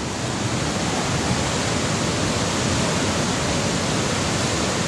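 Steady rush of water pouring out of a dam's gates, an even noise that does not change.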